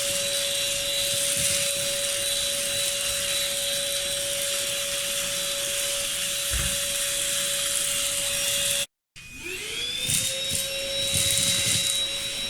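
INSE N5 cordless vacuum motor running with a steady hum and high whine. About nine seconds in the sound cuts out, and the motor spins back up with a rising whine that levels off.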